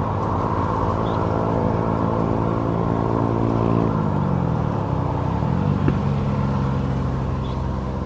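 A motor engine running steadily, its pitch dipping and then climbing back about halfway through.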